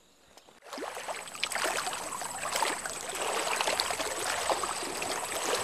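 Many small quick splashes on the lake surface, starting about a second in, from a swarm of small fish jumping and splashing. A thin steady high whine runs over them.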